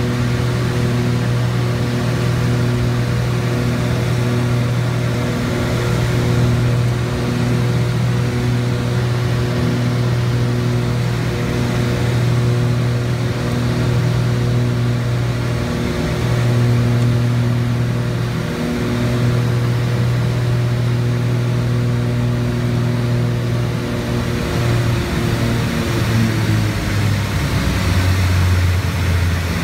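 Twin piston engines and propellers of a Piper PA-31-350 Navajo Chieftain droning steadily, heard inside the cockpit on final approach, with a slow pulsing beat about once a second from the two propellers running slightly out of sync. About 25 seconds in the pitch drops as the power comes back for touchdown.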